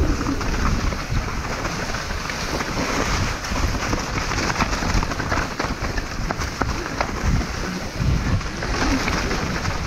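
Mountain bike descending a rough trail at speed: tyres crunching over stones and gravel, with frequent clicks and knocks from the bike rattling, over a heavy low rumble of wind on the microphone.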